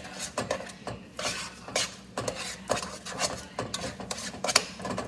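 A utensil stirring instant mashed potatoes (flakes mixed with water and milk) in a pot, scraping and knocking against the sides in irregular strokes.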